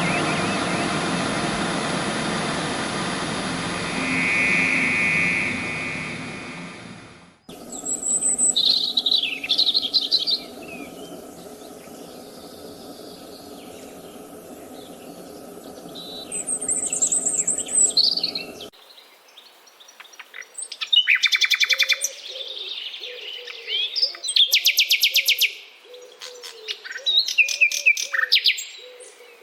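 A dense, steady din fades out over the first seven seconds, then rainforest birds chirp and call in two different recordings: sharp whistled phrases over a steady hum, then fast trills with a low note repeated again and again underneath.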